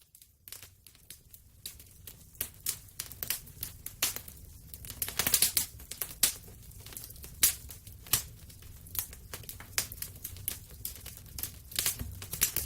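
Wood fire burning in a fireplace: irregular sharp pops and snaps of burning wood, several a second in places, over a low steady rumble of the flames.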